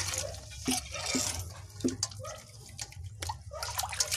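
Water splashing and dripping in a steel basin as hands rub and rinse mudfish, in irregular bursts with a few sharper knocks against the basin.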